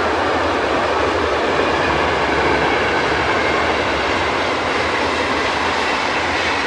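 Passenger train's coaches rolling along a concrete railway viaduct: a loud, steady rush of wheel-on-rail noise as the train draws away.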